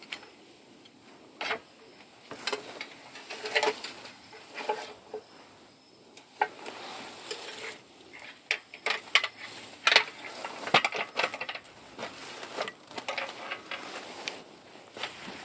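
Irregular rustling, scraping and crackling of leaves, twigs and bark being pushed through and handled, with a faint steady high insect drone behind it.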